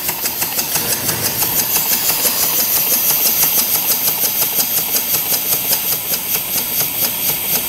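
Model Stuart beam engine running steadily on compressed air at about 7.5 to 8 psi: an even beat of exhaust puffs, about five a second, over a hiss of escaping air.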